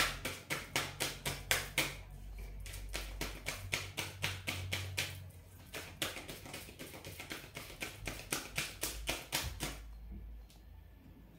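A tarot deck being shuffled by hand: rapid, regular card clicks about four or five a second, in runs broken by short pauses and thinning out near the end.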